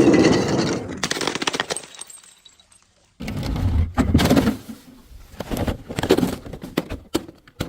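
Glass being smashed and crushed in two bouts of cracking and crackling. The first starts at the opening and fades over about two seconds; after a short silence a second run of snaps and crunches begins about three seconds in and trails off in single cracks near the end.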